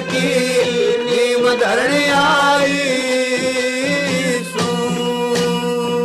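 Haryanvi ragni folk music in an instrumental passage: a wavering melody over steady held drone notes, with sharper plucked or struck notes coming in after about four and a half seconds.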